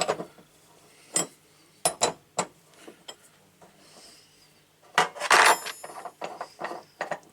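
Metal clinks and knocks of a ring spanner working on a tap's headgear as it is undone, with a louder clatter and a brief metallic ring about five seconds in.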